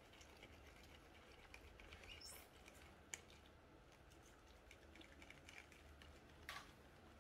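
Near silence with faint light clicks and taps from plastic baby bottles being handled, a brief high squeak about two seconds in and a sharper tick just after three seconds.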